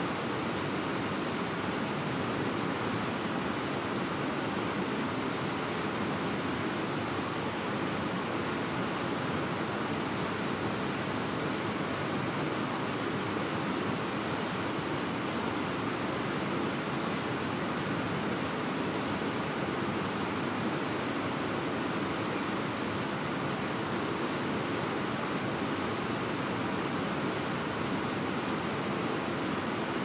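Fast-flowing mountain stream rushing steadily over rapids, an even, unbroken wash of water noise.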